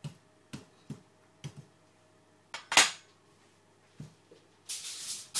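A metal fork jabbing into a raw sweet potato on a wooden chopping board: a few sharp taps of the tines, roughly half a second apart, with one louder clack about two and a half seconds in. Near the end, aluminium foil starts to crinkle and rustle.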